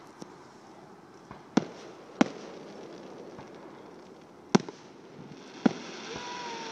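Aerial fireworks shells bursting: four sharp bangs, two about half a second apart and two more about a second apart, with a few fainter pops between. A hiss rises under the last bangs, and a faint falling tone follows.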